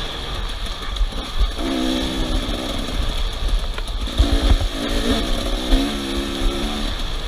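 Off-road vehicle engines revving in held bursts, under a heavy low rumble.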